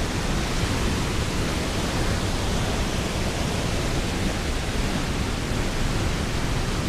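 Steady rushing of a waterfall pouring into a rock pool.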